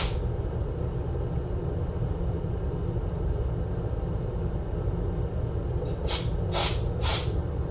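Steady low hum of workbench equipment, with three short hissing puffs about half a second apart near the end.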